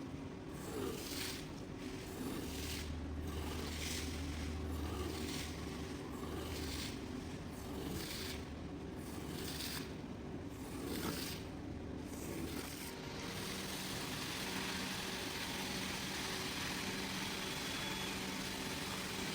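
Wet rug being cleaned: a tool is worked over it in swishing strokes about every second and a half. About thirteen seconds in, this gives way to a steady hiss of spraying over a low machine hum.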